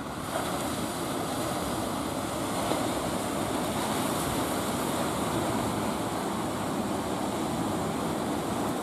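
Sea surf breaking and washing in, a steady rushing noise that swells just after the start, with wind rumbling on the microphone.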